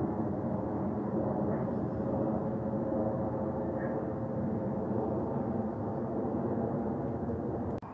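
Jet airliner passing low overhead: a steady engine roar with a hum of several steady tones. It cuts off abruptly near the end.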